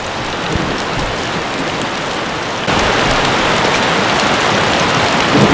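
Hail and rain coming down like crazy: a steady dense hiss that gets louder about two and a half seconds in.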